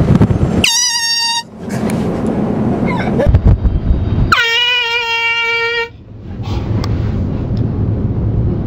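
Handheld air horn sounding two blasts: a short, higher-pitched one, then a longer, lower one a few seconds later. A steady low rumble of wind noise fills the gaps.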